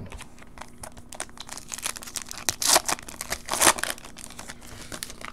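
Foil wrapper of a Topps Chrome football card pack being torn open and crinkled, a run of sharp crackles that is loudest between about two and a half and four seconds in.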